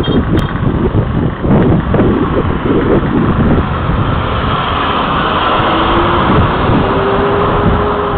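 A bus pulling away from a roadside stop and driving close past, its engine and tyres making a steady roar that builds as it goes by, with a faint engine tone rising in pitch near the end. Wind rumbles on the microphone throughout.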